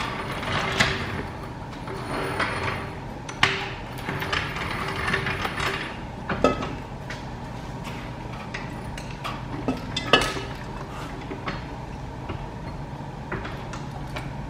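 Cast-aluminium intake manifold being handled and set against a Honda K24 engine's cylinder head: scattered metal clunks and knocks, the loudest about ten seconds in, over a faint steady hum.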